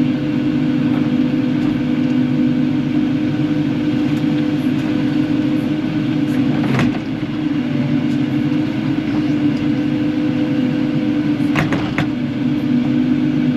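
Kubota KX080-4 excavator's diesel engine running steadily under work. A few sharp clanks cut through it, about seven seconds in and twice in quick succession near the end.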